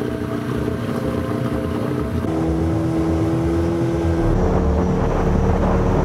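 Small outboard motor running steadily, pushing the inflatable boat along the river, with wind on the microphone. Sustained tones over it step to new pitches about two and about four seconds in.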